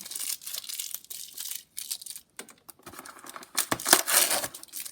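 Crinkling and rustling of a doll's box packaging being handled and pulled at, in irregular bursts with a louder stretch around the four-second mark.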